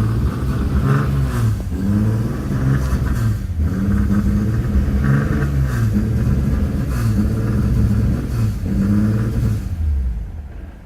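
Car engine revved over and over, its pitch climbing and falling back every one to two seconds, then fading away near the end.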